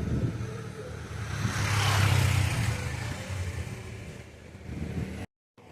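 A car passes close by on the street: engine hum and tyre noise swell to a peak about two seconds in and then fade away. The sound drops out completely for a moment near the end.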